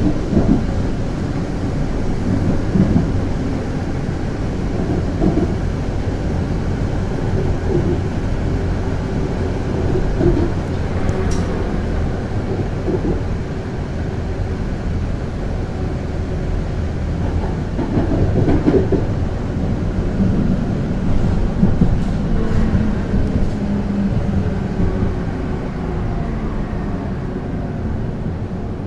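Konstal 105Na tram heard from inside while running along the track: a steady rumble of wheels on rail with scattered knocks and a sharp click about 11 seconds in. In the later part a whine drifts down in pitch over the last several seconds.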